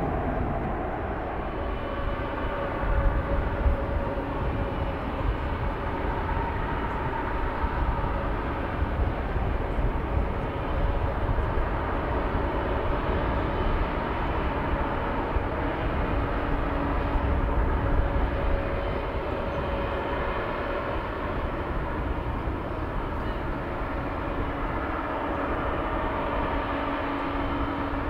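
Jet airliner engines running: a steady rumble with a few faint, held whining tones.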